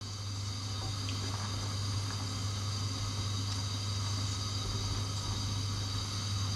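A sauce simmering and thickening in a small stainless saucepan over a gas burner while it is stirred with a wooden spatula: a steady hiss with a constant low hum underneath.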